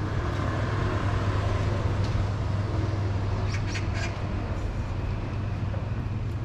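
City street ambience: a steady low hum of traffic and engines, with a brief cluster of short high chirps about three and a half seconds in.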